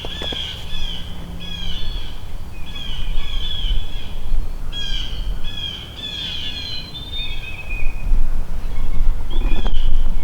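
Songbirds singing: short, high chirping phrases repeated every second or so, with a low rumble growing louder near the end.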